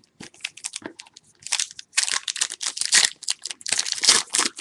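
Plastic card wrapping being torn open and crinkled by hand: a few scattered crackles, then dense, irregular crinkling from about a second and a half in.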